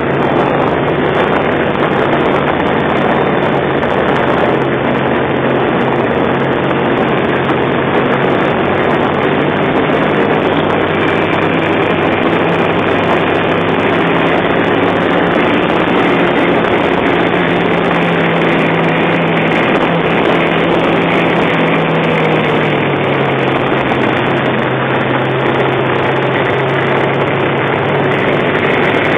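Engine of a tracked snow vehicle running steadily under load as it drives through deep snow, its note dropping slightly about three-quarters of the way through.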